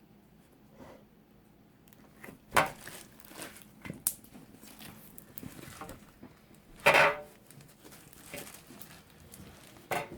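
Homemade glue slime full of foam beads being squeezed and pulled by hand: irregular wet squishing and crackling, with a few louder sharp snaps, the strongest about two and a half and seven seconds in.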